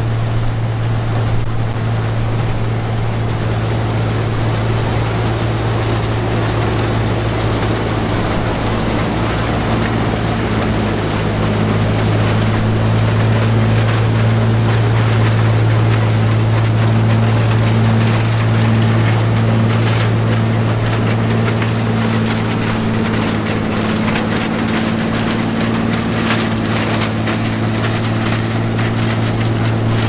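A 1960s John Deere 95 combine running steadily while harvesting corn: a continuous engine hum mixed with the rattle of the threshing machinery, a little louder through the middle.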